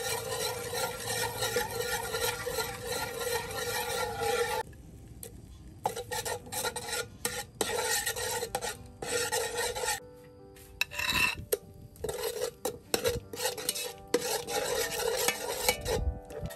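Metal ladle stirring and scraping round the bottom of an aluminium pot of soup liquid, in long rasping bouts that pause briefly about five seconds in and again about ten seconds in.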